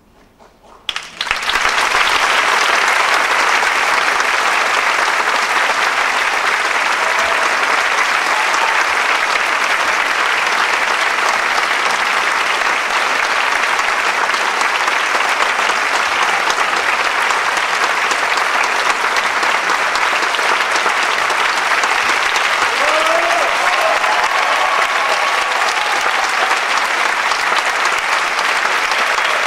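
Theatre audience applauding, breaking out suddenly about a second in after a brief hush and holding loud and steady.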